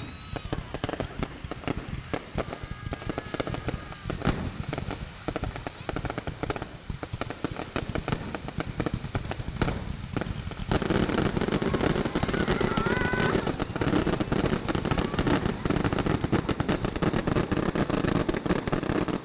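Fireworks going off in rapid succession: a dense, irregular run of pops and cracks that becomes louder and denser about ten seconds in.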